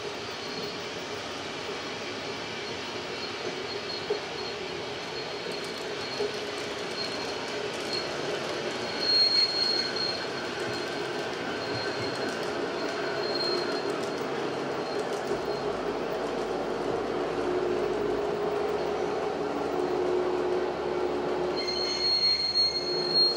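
Model trains running on a model railway layout: a steady rolling noise of wheels on the track and motors, with a thin high-pitched wheel squeal that comes and goes, strongest about nine seconds in and near the end.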